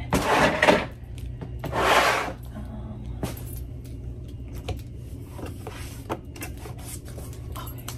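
Rustling and handling noise: two loud scuffing rustles in the first two and a half seconds, then scattered light clicks and knocks over a steady low room hum.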